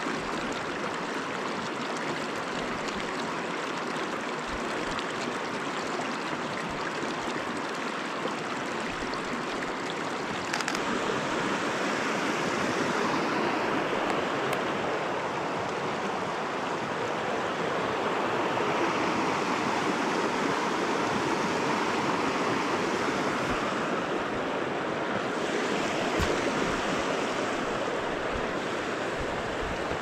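A river flowing, a steady rushing of water that gets louder about ten seconds in.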